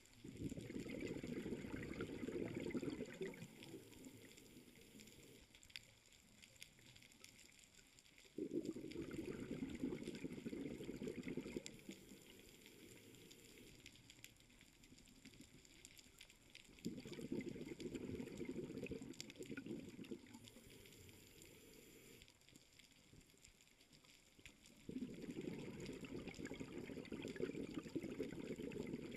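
Scuba diver's exhaled bubbles gurgling from the regulator in four bursts about eight seconds apart, each lasting three to four seconds, with quieter crackling between breaths.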